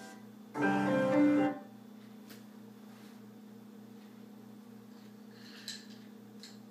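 A short phrase of piano or keyboard notes about half a second in, lasting about a second, then a low steady hum with a faint click and a light clink near the end.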